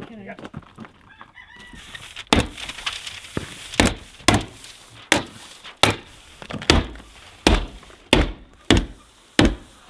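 Sharp single strikes, about one every half to three-quarters of a second starting some two seconds in, as Tyvek housewrap is tacked to the cabin's wooden wall.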